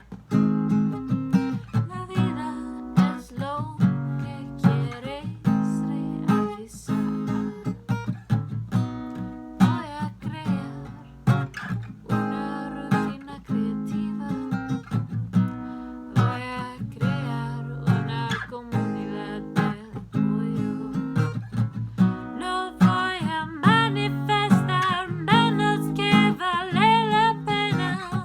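Acoustic guitar strummed in a steady rhythm, with a voice singing the melody over it, most clearly near the end.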